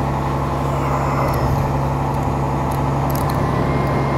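Fire engine running its pump to supply a charged hose line: a steady low engine drone that holds even throughout.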